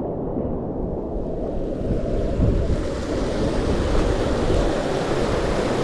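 Mountain stream water rushing steadily over rocks, with low rumbles of wind on the microphone.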